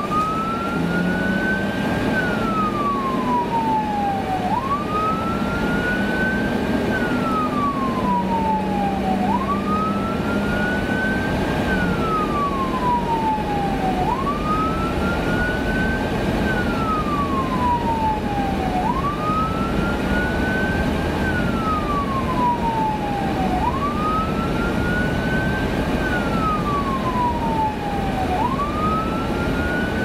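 Fire department response vehicle's siren in a slow wail: the pitch climbs quickly, then falls back, repeating about every five seconds, six times through. It is heard from inside the cab over steady road and engine noise.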